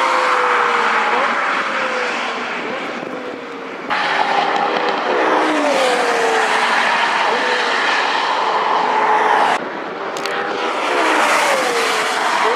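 Lexus LFA's naturally aspirated V10 engine driven hard on track, its high engine note repeatedly rising and dropping in pitch. The sound breaks off abruptly twice, about four seconds in and again near ten seconds, where the footage is cut.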